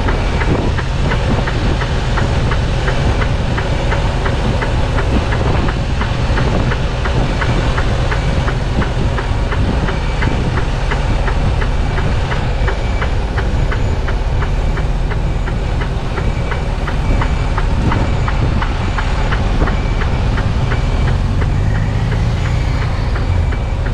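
Mercedes-Benz Actros truck's diesel engine running at low speed, heard in the cab, with a steady ticking of the turn signal, about three ticks a second.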